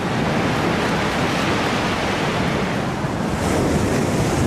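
Qiantang River tidal bore surging and breaking against the riverbank: a steady, loud rush of churning water.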